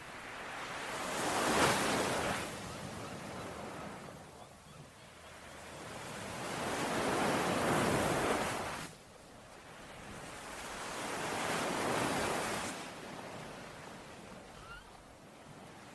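Ocean waves washing onto a shore, three slow surges that swell and fall away, the middle one dropping off suddenly.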